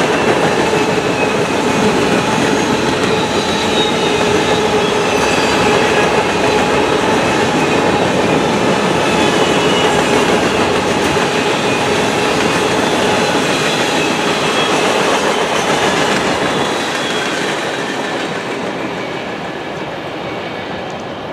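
Freight train of covered hopper cars rolling past close by, steel wheels running on the rails with steady high squealing tones. The sound fades over the last few seconds as the end of the train passes and draws away.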